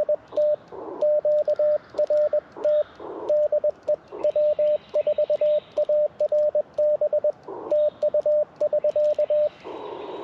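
Morse code (CW) sidetone from an Icom IC-705: a single steady tone of about 600 Hz keyed on and off in quick dits and dahs as the operator sends on his paddle, signing off the activation. Brief bursts of receiver hiss fill the gaps between characters, and the keying stops about a second before the end.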